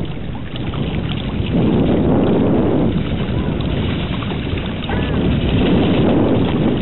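Wind buffeting the microphone: a steady low noise that swells about a second and a half in.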